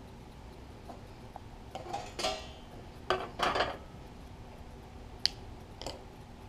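Light metallic clatter of sheet-metal parts and tools being handled on a bench: two short rattling bursts about two and three seconds in, then two sharp clicks near the end.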